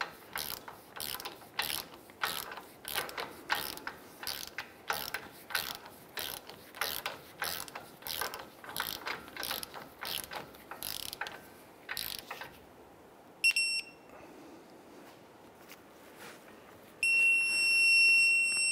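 Torque wrench ratchet clicking in a steady rhythm, about two or three clicks a second, as the outer tie rod end's castle nut is tightened, stopping about twelve seconds in. Then a short electronic beep, and near the end a longer, louder one: the digital torque wrench signalling that the set torque or angle has been reached.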